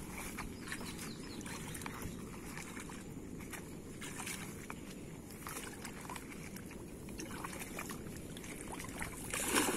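A person wading through shallow lagoon water, with sloshing and small splashes and drips around the legs. A louder rush of splashing starts near the end.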